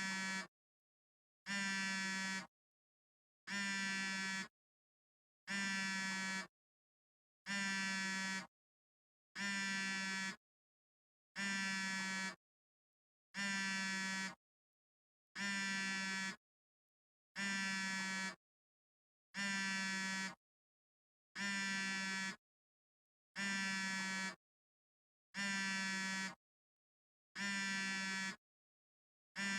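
Smartphone vibrating in a steady repeating pattern: a low buzz about a second long, then a gap of under a second, over and over.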